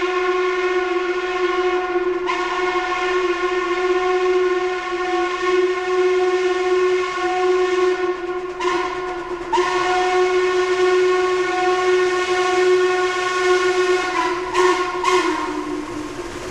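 A train horn sounding one long, steady single-note blast. Its tone briefly wavers a few times, and it cuts off at the end.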